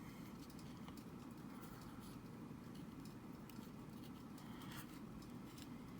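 Faint handling of small plastic Joy-Con parts: a few light clicks and taps over a steady low room hum.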